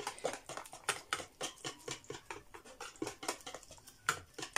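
Wire whisk beating thin pancake batter in a plastic basin: quick, uneven clicks and wet taps, several a second.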